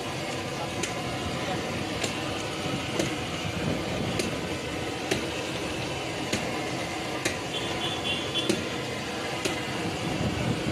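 Street-stall background: steady noise with indistinct voices and faint clicks about once a second.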